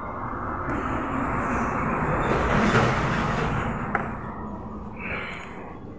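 A vehicle passing by: a broad rushing noise that swells to a peak about halfway through and fades away, with a sharp click about four seconds in.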